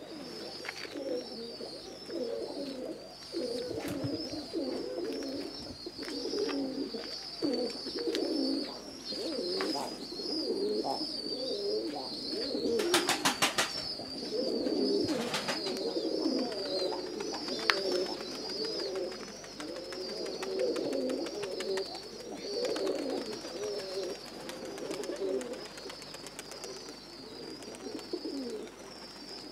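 A flock of domestic pigeons cooing continuously, many overlapping coos, with a steady high chirring in the background. A brief burst of rapid claps comes about halfway through.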